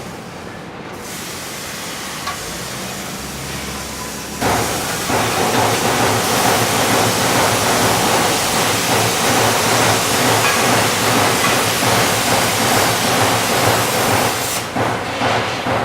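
Robotic arc weld: the welding robot's arc strikes about four seconds in, then hisses and crackles steadily for about ten seconds before cutting off near the end. Before the arc, steady shop background noise.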